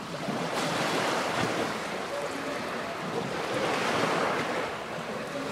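Lake water washing against a stone shore, a steady rushing that swells and eases every second or two, with wind on the microphone.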